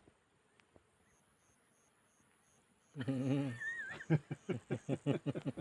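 A lion gives a wavering groan, then a rapid run of short grunts at about five a second. Before that, insects tick faintly and steadily.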